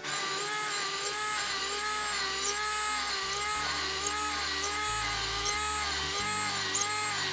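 Background music with a pulse repeating about twice a second over a stepping bass line.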